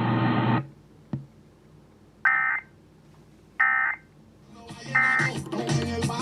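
Emergency Alert System end-of-message: three short bursts of SAME digital data tones, about 1.3 s apart, after a single click, signalling that the warning broadcast is over. Music with guitar starts under the third burst.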